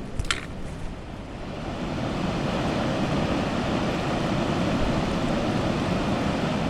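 Rushing water of a waterfall on a river in spring-melt flow: a steady noise that swells over the first two seconds and then holds level.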